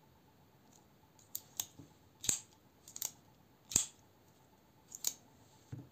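Jufule BearFly axis-lock folding knife being swung open and shut by hand: a string of sharp metallic clicks and snaps as the blade moves and the lock engages, the two loudest about a second and a half apart.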